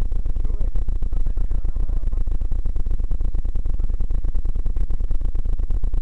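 Wind buffeting and jolting rumble on a camera microphone carried on a mountain bike riding a rough dirt trail: a steady low rumble broken by rapid, irregular knocks.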